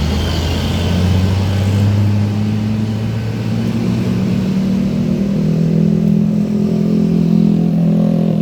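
Diesel engine of a tour bus running close by, loud and steady, its tone shifting higher about halfway through.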